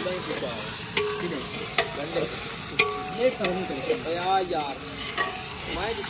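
A long-handled metal ladle stirring potatoes and chicken frying in oil in a large aluminium pot, scraping along the pot and knocking against it in several sharp clanks, over a steady sizzle.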